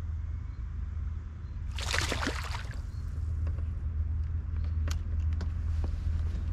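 A splash of water at the surface about two seconds in, lasting just under a second, over a steady low hum.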